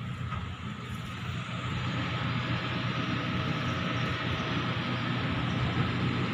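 Steady rumbling outdoor background noise with a faint steady hum, growing a little louder about two seconds in.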